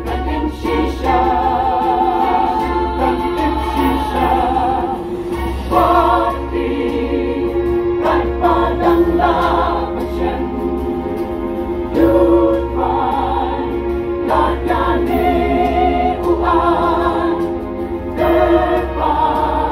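Mixed choir of women and men singing a sacred choral piece, amplified through stage microphones, with a wavering vibrato on the held notes.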